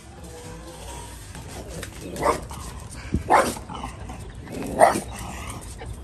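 French bulldog on a leash barking three times, a little over a second apart, starting about two seconds in. It is barking at a costumed living statue that reached toward it.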